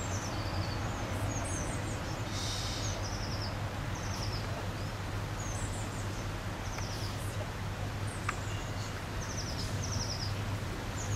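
Small songbirds chirping repeatedly in short high calls over a steady low hum of outdoor background noise.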